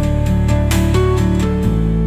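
Background music: a sustained guitar-led instrumental passage with bass notes changing every half second or so, between the sung verses of the song.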